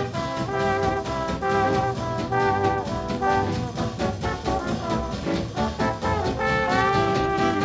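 Big-band swing jazz, with a brass section of trumpets and trombones playing quick phrases over a rhythm section, then holding long chords near the end.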